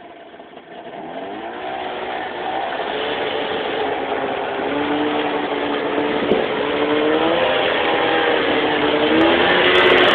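Snowmobile engine revving up: its pitch climbs about a second in and then holds with a couple of small rises, growing steadily louder throughout.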